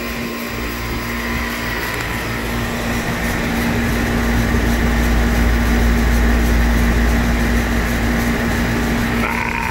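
Central air conditioner's outdoor condensing unit running: the Goodman reciprocating compressor's steady hum under the rush of the condenser fan. The R-22 system is cooling normally on its new fixed piston metering device.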